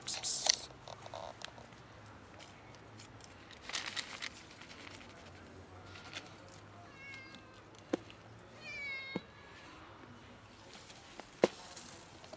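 A stray cat meowing twice, about seven and nine seconds in. There are bursts of rustling in dry leaves near the start and around four seconds in, and a few sharp clicks, the loudest one near the end.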